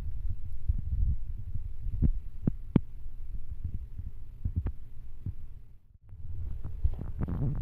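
Mother cat purring, a steady low throbbing rumble close to the microphone, with scattered short sharp clicks from a nursing kitten suckling. The sound dips away briefly about six seconds in, then returns.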